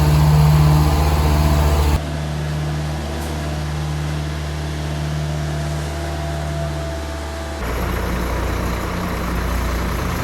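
Heavy truck engine running steadily at a constant speed. Its tone changes abruptly twice, about two seconds in and again near the end.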